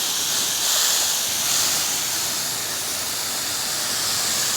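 Pressure-washer spray applying soap solution to a house's trim: a steady, even hiss.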